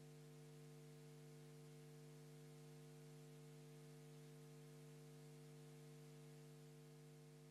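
Near silence, with a faint steady electrical hum on the audio feed: a low buzz with a few overtones that holds unchanged.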